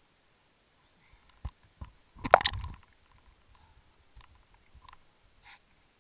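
A few muffled knocks and scrapes of handling against a waterproof camera housing, with a louder cluster of them about halfway through and a short sharp one near the end.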